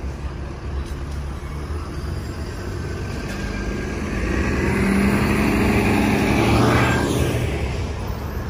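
City transit bus driving past close by: its engine grows louder, peaks in the middle, then fades near the end over the steady hum of street traffic.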